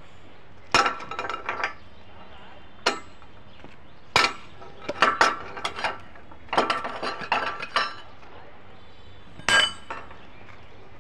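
Steel tools clinking and knocking against a railway rail and its steel fastening clips: sharp, ringing metal strikes, some single and some in quick runs of several, with pauses of a second or two between.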